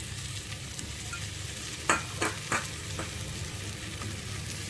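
Shallow-fried potato wedges sizzling steadily in oil and spice paste in a nonstick pan. A few light knocks against the pan come about two seconds in, and a couple more near the end.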